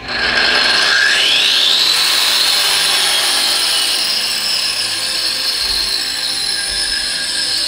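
Corded electric power tool's motor switched on and spinning up, its whine rising over the first two seconds and then running steadily at full speed. It runs off a newly wired outlet, showing the outlet is live.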